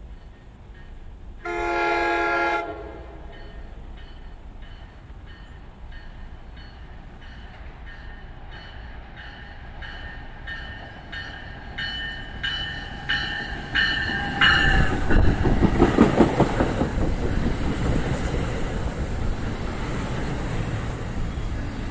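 An NJ Transit train's horn gives one short blast about two seconds in, then the locomotive bell rings about twice a second, growing louder as the train approaches. From about fifteen seconds in the train passes close by, loud, with wheels clattering over the rail joints.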